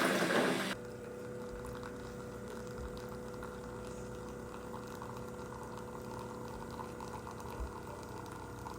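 A tap runs briefly. Then, from just under a second in, a coffee machine is brewing: a steady pump hum with one constant tone and water moving through it.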